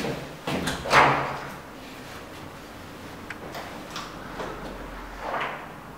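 A few sudden knocks or bangs in quick succession, each trailing off in a short ringing decay, the loudest about a second in; then a quieter stretch with a low hum before another swelling bang near the end.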